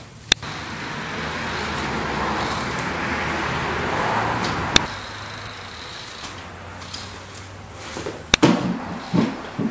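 BMX bike rolling over a concrete floor, its tyres making a broad rushing noise that swells and fades over the first few seconds. There are a few sharp clicks, and a cluster of heavier thumps near the end as the bike's wheels come down on the concrete.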